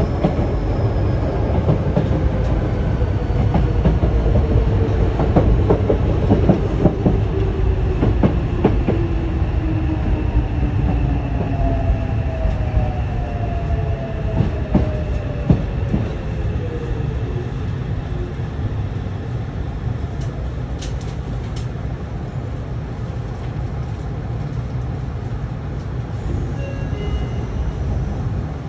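Yokohama Municipal Subway Blue Line train running, heard at the gangway between cars: a steady low rumble with wheel clacks over rail joints, most of them in the first half. A motor whine slides down in pitch over the first half as the train slows.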